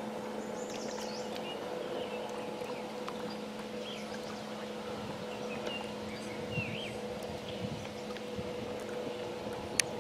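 Outboard motor of a small racing boat running under way, a steady drone holding its pitch, with small birds chirping over it and a sharp click near the end.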